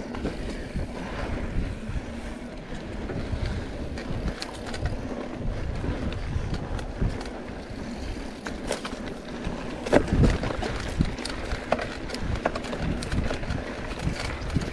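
Mountain bike riding over a dry dirt trail: wind buffeting the microphone over the tyres' rolling noise, with scattered clicks and rattles from the bike and a sharper knock about ten seconds in.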